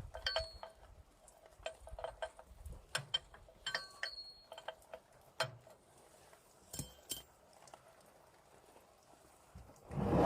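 Scattered light metallic clinks and taps, a few ringing briefly, with a louder, longer knock near the end.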